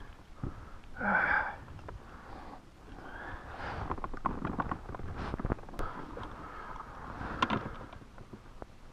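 Handling noise of a double-hooked bass being worked free of crankbait hooks in a landing net with pliers: rustling and a quick run of clicks and taps, thickest in the second half, with one sharper click near the end. A brief vocal sound comes about a second in.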